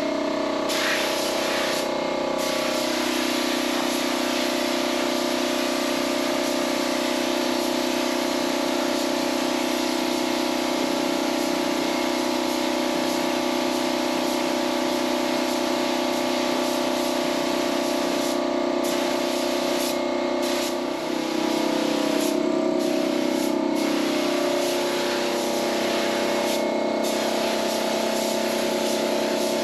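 Gravity-feed paint spray gun hissing as it sprays paint, its air cutting off briefly several times, with background music throughout.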